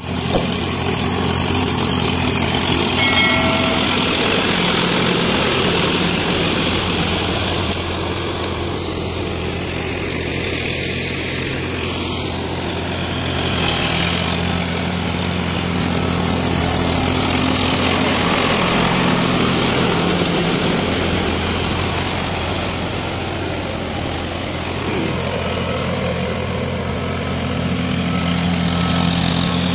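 Diesel tractor engine running steadily while it pulls a rotavator through a flooded rice paddy to puddle the mud. It grows louder and fades twice as the tractor works nearer and farther away.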